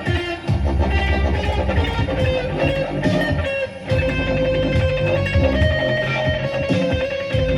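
Electric guitar playing over a bass line. A long sustained note comes in about two seconds in and is held on, and the bass drops out briefly near the middle.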